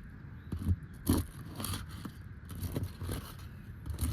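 Asphalt roof shingles being handled: several short, irregular gritty scrapes.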